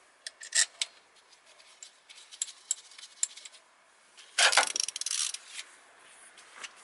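Light metallic clicks as a small bolt is set back into an ignition coil by hand, then a dense burst of metal clattering just after the midpoint as a ratchet with a socket extension is picked up and brought onto the bolt. A few sparse clicks follow.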